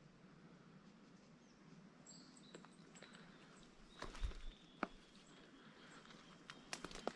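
Quiet bush ambience with faint, high chirping bird calls, broken by a few sharp clicks and knocks about four seconds in and again near the end.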